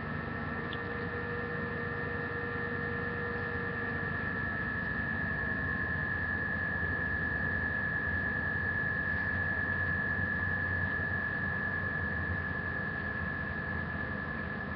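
Steady electrical hum with a high, even whine over background hiss.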